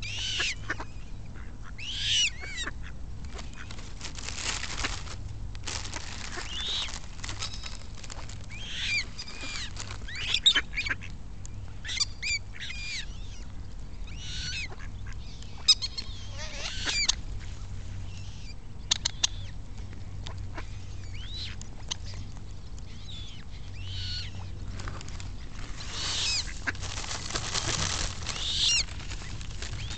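Eurasian coots calling with short, high notes, some sliding in pitch, mixed with mallard quacks, a call every second or two.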